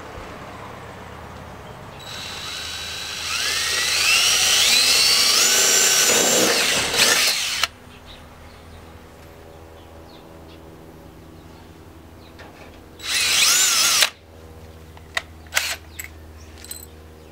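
Power drill boring a hole, its whine rising in pitch as it spins up, for about five seconds before it stops. About a second-long second run of the drill comes later, followed by a few sharp clicks.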